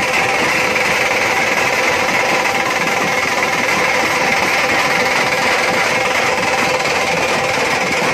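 A Bengali dhak and smaller white-headed drums struck with sticks in fast, continuous drumming: a dense roll with no breaks, at a steady level, with a faint steady ringing over it.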